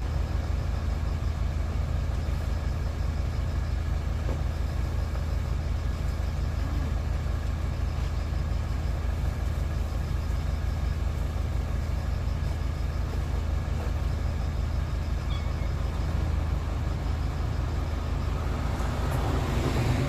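A vehicle engine idling: a steady low drone with a fast, even pulse that does not change.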